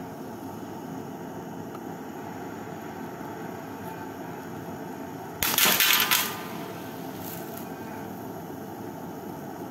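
Butane torch hissing steadily as its flame plays on a drinking glass. About five and a half seconds in, the heated glass cracks and a piece of the rim breaks off with a sharp crack and brief clinking, followed by two faint tinkles.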